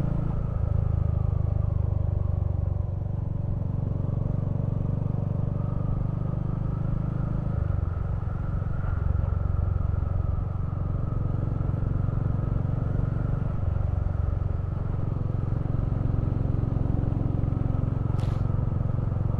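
Royal Enfield Hunter 350's single-cylinder engine running steadily while the motorcycle cruises, heard from the rider's seat, its note shifting slightly a few times with the throttle.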